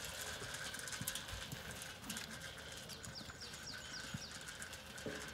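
Zwartbles rams eating feed from a metal trough: chewing and crunching with many small clicks and knocks as their muzzles bump the trough. A bird sings a quick run of falling notes about three seconds in.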